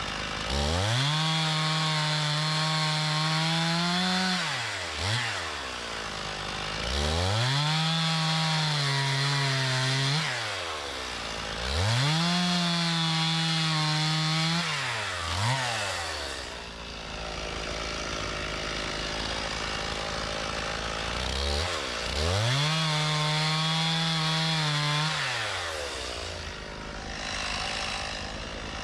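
Stihl MS 391 two-stroke chainsaw revving to full throttle four times, each burst about three seconds long, and dropping back to idle between them, with a longer idle about halfway through. The full-throttle bursts are the saw bucking logs into firewood lengths.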